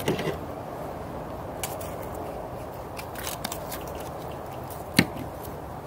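Small clicks and crackles of plastic spice jars being opened and handled, with one sharp click about five seconds in, over steady background noise.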